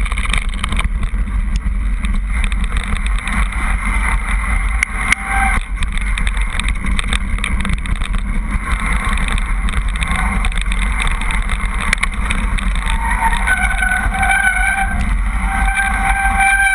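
Mountain bike descending a gravel track: wind buffets the camera microphone with a steady low rumble, and the tyres and frame make a constant clatter over the stones. Near the end, a squealing tone comes and goes as the brakes are applied to slow the bike down.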